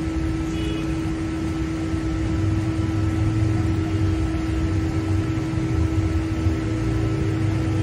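Steady mechanical hum: a low rumble with one constant tone under an even hiss, unchanging throughout.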